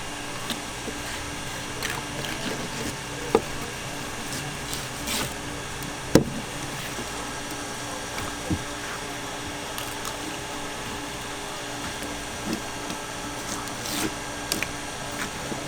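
A knife working through fish on a cutting board, with a few short sharp knocks of the blade or fish against the board; the loudest comes about six seconds in. A steady mechanical hum runs underneath.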